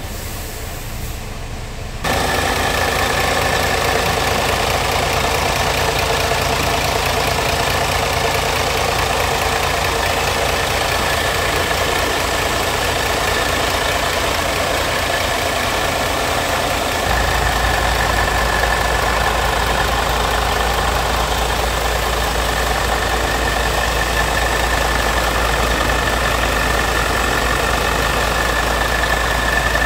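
Scania G tractor unit's diesel engine idling, muffled at first from inside the cab, then much louder from about two seconds in, heard at the open engine bay under the tilted cab, with a steady high whine over the running engine.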